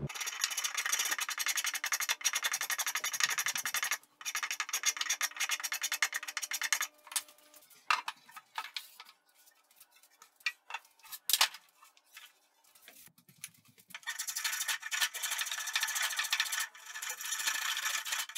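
A wooden chair part being abraded by hand with fast, continuous rubbing strokes. These come in three long spells, with scattered light knocks and taps in a pause of several seconds midway.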